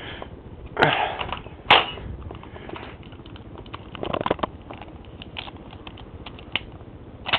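Blowback airsoft AK-47 fired twice, about a second apart, each shot a sharp crack with the clack of the slide cycling. Lighter clicks and rattles of the gun being handled follow.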